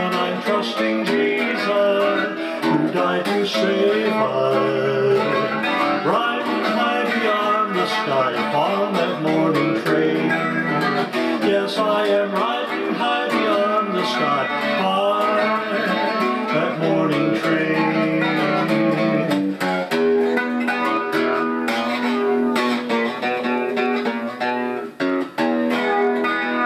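Country-style gospel music with no vocals: a hollow-body electric guitar plays an instrumental passage.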